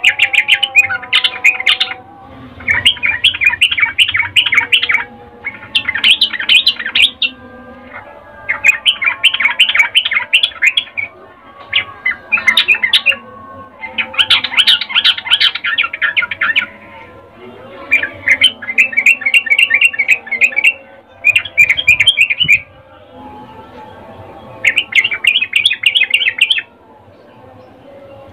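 Yellow-vented bulbul chattering in about ten quick bursts of rapid, high notes, each a second or two long, with short pauses between. It is a female's breeding-condition call, used as a lure to set male bulbuls singing.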